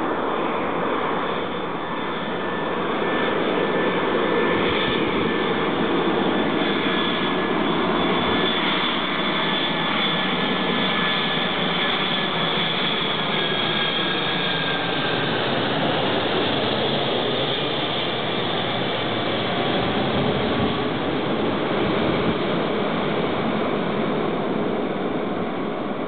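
Jet engines of a four-engined Boeing 747 on landing approach, a steady loud roar with a thin whine that fades about halfway through as the airliner passes overhead.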